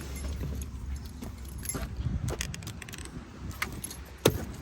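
Small metal parts clinking and rattling as they are handled, a run of light clicks with one sharper click about four seconds in.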